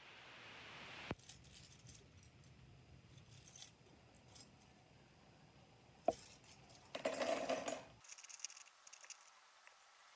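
Small hard plastic clicks and snips from assembling a plastic model kit: a sharp click about a second in, another about six seconds in, then a scratchy rustle lasting about a second, followed by light ticks.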